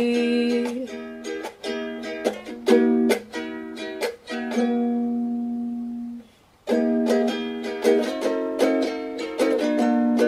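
Instrumental break in a song: a ukulele strumming chords, letting one chord ring and fade, stopping for a moment about six seconds in, then strumming again.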